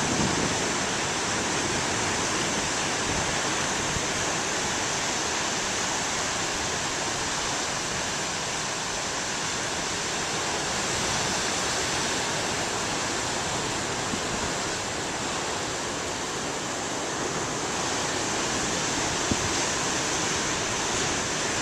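Big ocean waves breaking in continuous surf, a steady, even rush of water noise.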